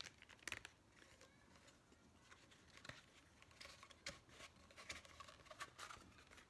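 Faint rustling and crackling of a rolled paper print being handled and unrolled, in scattered short crisp bursts.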